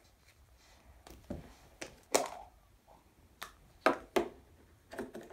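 Hollow plastic surprise-egg capsule being pried open by hand: a series of sharp plastic clicks and taps, the loudest about two seconds in.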